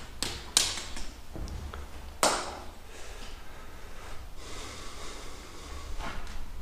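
Footsteps on gritty, debris-covered concrete floors: a few sharp steps and knocks in the first couple of seconds, then scuffing and crunching, over a low rumble.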